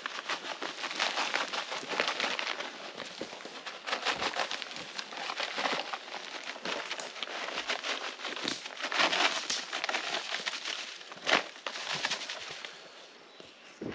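Dense crackling and rustling of dry brush and forest litter being trampled and handled, with one sharper knock about three-quarters of the way through. It goes quieter near the end.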